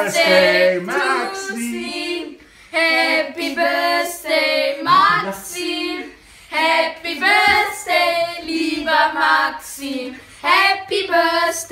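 Children singing a cappella in phrases of a few seconds each, with short breaks between them.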